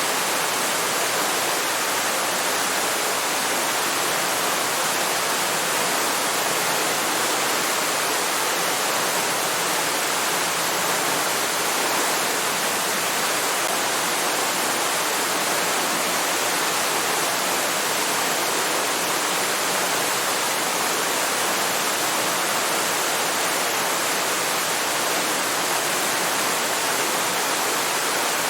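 Waterfall: a steady, even rush of falling water, with no single splashes or changes standing out.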